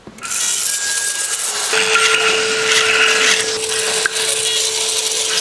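Electromechanical beaters on wire arms rattling rapidly against a wooden box, making a dry, raspy wooden clatter that starts just after the beginning. A steady held tone joins underneath about two seconds in.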